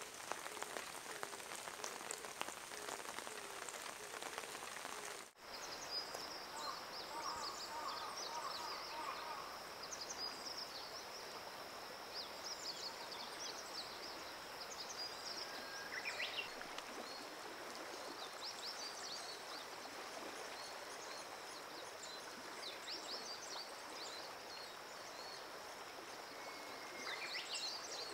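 Rain pattering on leaves for the first five seconds. After a sudden cut, a steady hiss of running river water, with birds chirping and a steady high-pitched drone above it.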